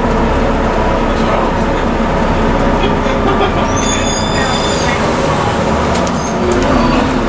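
Onboard sound of a Scania N230UD double-decker bus under way: its engine and drivetrain running steadily with a held whine, and a brief high-pitched squeal about four seconds in.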